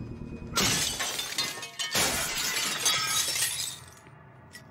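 Glass smashing in two loud crashes about a second and a half apart, each followed by shards rattling and scattering across a hard floor until it dies away.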